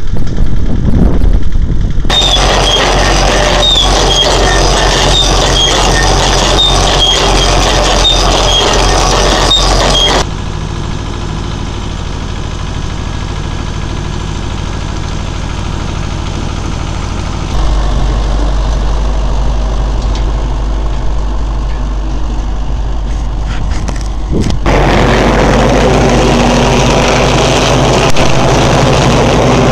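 Farm tractor diesel engines running steadily in several back-to-back cuts, the sound changing sharply at each cut. Part of it is an Ursus tractor pulling a potato digger. Near the end, soil and haulm rattle over the digger at close range. A run of high squeaks repeats in the first third.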